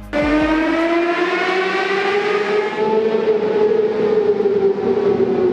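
Motorcycle engine revved hard at high rpm under acceleration in a road tunnel: one long high whine that comes in suddenly, climbs in pitch for about two and a half seconds, then eases slowly down.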